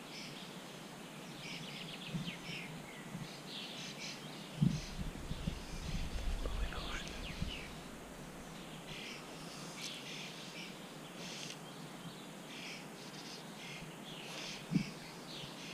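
Several songbirds singing, with many short chirps throughout. A low rumble with a sharp thump comes about five seconds in and lasts a couple of seconds, and another brief thump comes near the end.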